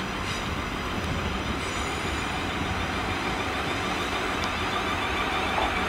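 Siemens Desiro electric multiple unit rolling slowly into the platform: a steady rumble of wheels on track with a low electric hum from the traction equipment.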